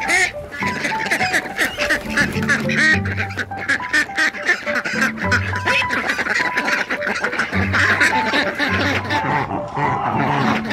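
A flock of ducks quacking over background music with a steady, repeating bass line.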